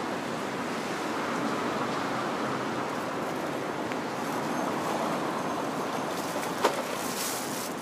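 Road traffic crossing a level crossing: a truck and cars drive over the rails, a steady rush of engine and tyre noise. There is a single sharp click about two-thirds of the way through.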